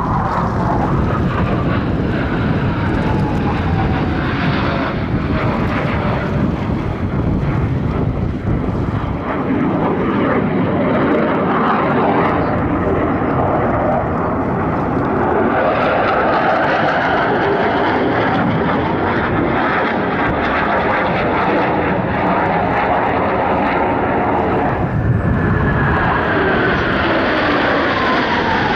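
Jet noise from US Navy Blue Angels McDonnell Douglas F/A-18C Hornets, each with twin GE F404 turbofans, flying past in display: a loud, continuous rush. A whine falls in pitch as a jet passes, once at the start and again near the end.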